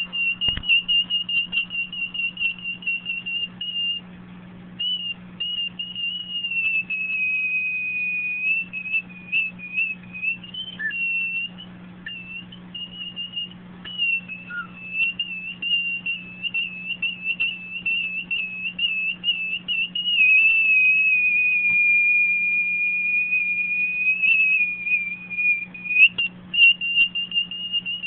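Hearing aid squealing with acoustic feedback: one high, steady whistle that wavers and chirps as the aid is handled, sagging slightly lower in pitch for a few seconds at a time, with brief breaks.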